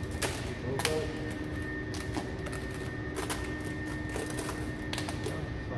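Vinyl wrap film crackling as it is stretched and pressed down by hand, a handful of short sharp crackles over a steady background hum with a constant tone.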